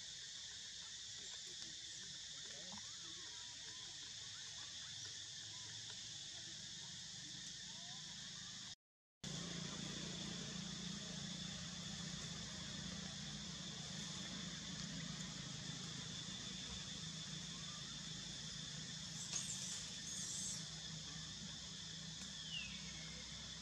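Steady high drone of insects in the trees. The sound drops out briefly about a third of the way in; after that a low hum sits underneath. Near the end come a brief high call and a short falling whistle.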